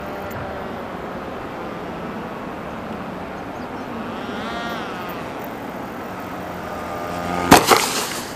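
Steady rush of air around a gliding electric RC flying wing (Combatwing XR) coming in to land. About halfway through its electric motor whines briefly, rising then falling in pitch. Near the end come two loud thumps as the wing hits the grass.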